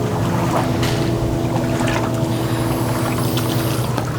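A boat motor running steadily with a low hum.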